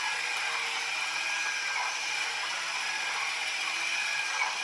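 Haynes HM04R plastic model engine kit running on its small electric drive motor: a steady whir and rattle of plastic gears, crank, cams and valve gear turning over. The mechanism runs stiffly, which the owner suspects is leftover moulding flashing, and the motor's pinion gear is split.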